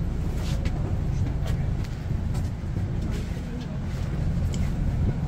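Shuttle bus engine running with a steady low rumble heard from inside the cabin, with scattered light knocks and clicks over it.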